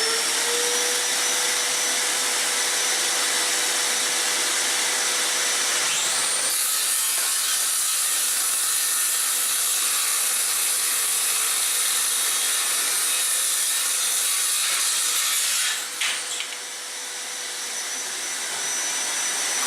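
Parkside PHKSA 20-LI A2 cordless circular saw, a 20 V battery tool, spinning up to a steady high whine and running free for about six seconds. It then cuts through a wooden board for about nine seconds with a loud rasping, and goes back to running free. A vacuum hooked to the saw for dust extraction runs underneath.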